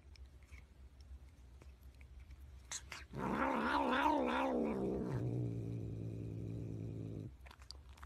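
Cat giving one long, wavering yowl about three seconds in, which slides down into a lower held tone and stops about seven seconds in.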